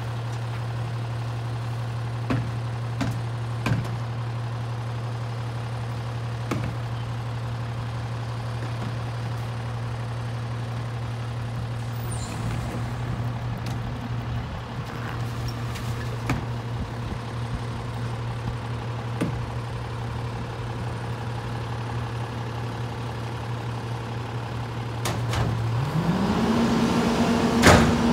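Garbage truck engine idling steadily while trash cans knock against the rear hopper a few times as they are tipped in. Near the end the engine revs up and holds at a higher speed to drive the rear loader's hydraulic packer, with one loud bang.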